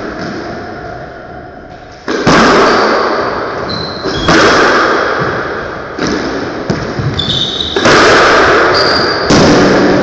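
Squash rally: about five sharp strikes of racket and ball against the walls, one every one and a half to two seconds, each echoing and fading in the court. Brief high shoe squeaks on the wooden floor come between the strikes.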